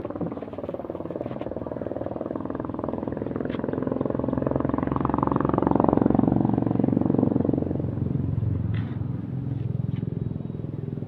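Engine of a passing motor vehicle, its pitch shifting as it grows louder to a peak about six seconds in and then fades.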